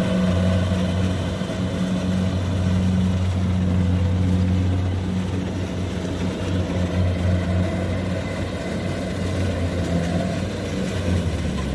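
Kubota combine harvester's diesel engine running steadily, a continuous low drone.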